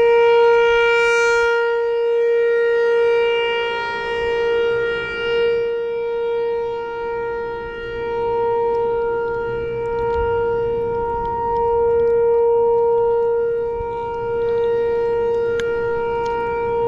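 A steady whistling drone held at one pitch with a string of overtones, swelling and fading slightly in loudness: a fault tone on the camera's audio, which the angler calls 'insane' and apologises for.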